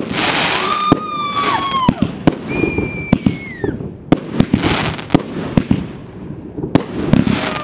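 Aerial fireworks going off: a quick, irregular series of sharp bangs and crackles from shells bursting overhead, with hissing rushes between them. Two whistles fall in pitch, one about a second in and one around the middle.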